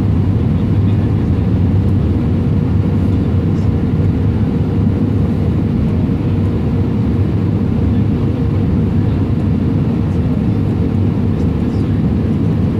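Cabin noise inside an Airbus A320 on final approach with flaps extended: the steady, deep rush of engines and airflow, with a thin steady hum running through it.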